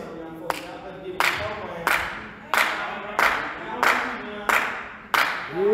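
A group clapping together in a steady rhythm, about three claps every two seconds, with voices singing along between the claps.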